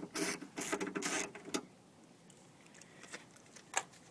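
Socket ratchet turning out a 10 mm bolt in quick strokes, about three or four a second, stopping about a second and a half in; a couple of single clicks follow.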